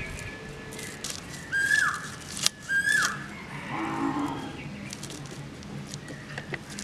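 Two short, high animal calls about a second apart, each holding its pitch and then dropping. Under them come the scrape and tick of fish scales being scraped off against an upright blade.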